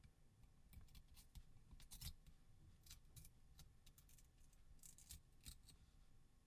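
Faint, scattered clicks and light scraping of metal tweezers peeling a heat spreader off a phone's engine board.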